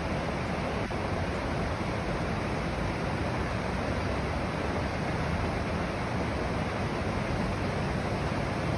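Steady rush of white water from the Falls of Dochart, river water pouring over rocky rapids.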